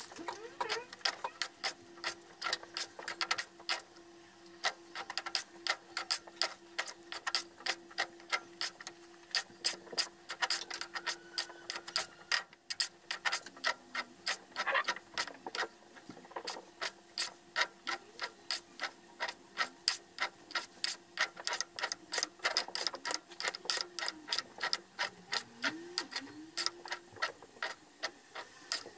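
Metal spoon knocking and scraping against a pan in a steady rhythm, about two to three strokes a second, as thick glutinous rice (biko) is stirred and folded over. A faint steady hum runs underneath and stops about twelve seconds in.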